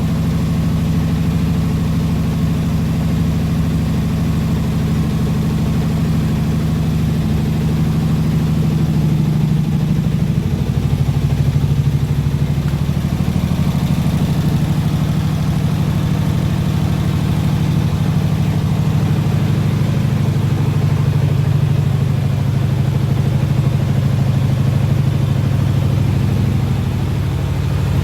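An engine idling steadily, with a slight change in its note around ten seconds in.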